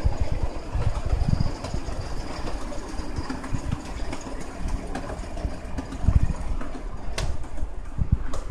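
Hitachi escalator running as it carries a rider up to the top landing: a steady mechanical rumble from the moving steps, with uneven low thumps and two sharp clicks near the end.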